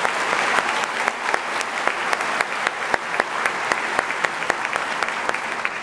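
Audience applauding, a dense patter of many hands clapping that starts to thin out near the end.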